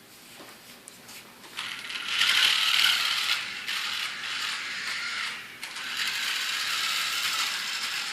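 Small RC toy cars' electric motors and plastic gearboxes whirring as they drive around, starting about a second and a half in and carrying on with a brief dip partway through.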